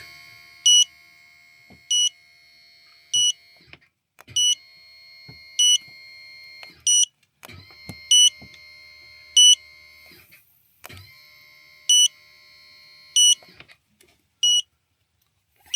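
Loud electronic warning beeps about every second and a quarter, with a faint high whine that runs in stretches, stopping and starting again, as the motorhome is jacked up.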